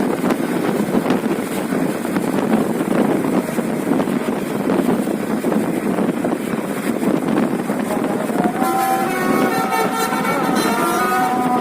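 A loud, steady noise of a bus running. About eight and a half seconds in, a basuri telolet horn starts playing a tune of several notes that step up and down in pitch.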